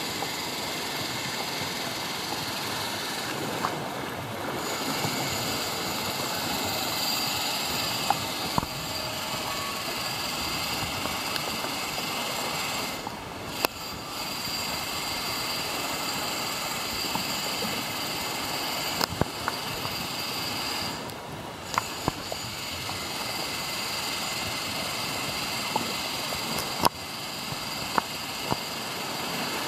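Kayak paddling on open water: a steady rushing noise throughout, with scattered sharp knocks of paddles against the hull or water.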